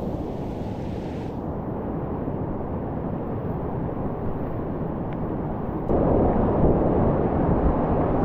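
Whitewater rapids rushing: a steady low noise that jumps abruptly louder and brighter about six seconds in.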